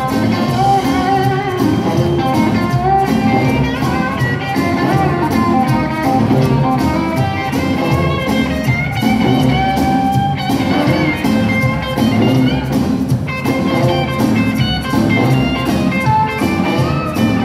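Live band playing an instrumental break, an electric guitar leading over upright bass and drums.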